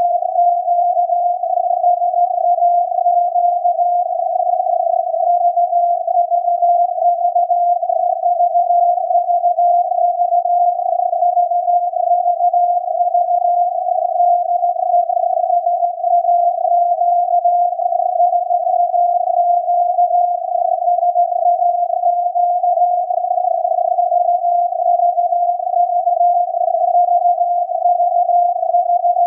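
Longwave radio signal from SAQ's Alexanderson alternator at 17.2 kHz, received on a software-defined radio and heard as a Morse tone near 700 Hz whose pitch wavers slightly, inside a narrow band of filtered radio hiss. This is the automated punched-tape 'VVV de SAQ' sending.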